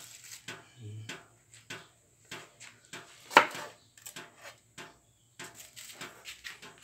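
Kitchen handling noises: scattered small taps and clicks of garlic cloves and a knife on a wooden chopping board, with one sharp knock about three and a half seconds in.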